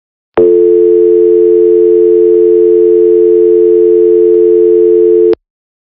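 Dial tone of a simulated Cisco 7960 IP phone, played when its handset goes off-hook and the phone is ready for a number to be dialled. It is a loud, steady tone that starts about half a second in and cuts off suddenly shortly before the end.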